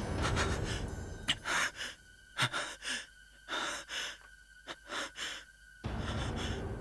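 A man's heavy, shaky panting as he wakes with a start: quick in-and-out breaths in pairs, about one pair a second. A louder, longer rush of sound starts near the end.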